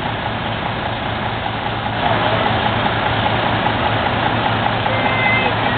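Heavy truck engine idling steadily, a little louder from about two seconds in.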